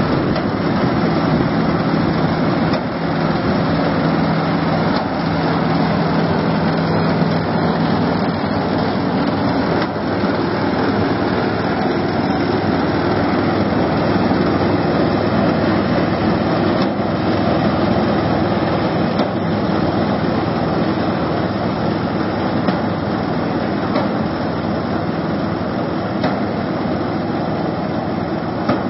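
Small engine of an amphibious rice thresher running steadily as the machine drives through a flooded paddy.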